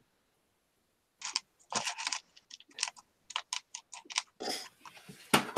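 Irregular clicks and taps of small hard objects being handled, starting about a second in, after a moment of silence.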